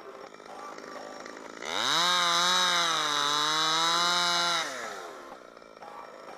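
Two-stroke top-handle chainsaw (Holzfforma G111) revved to full throttle about a second and a half in and held for about three seconds, its pitch sagging a little in the middle, then released so it winds back down to idle.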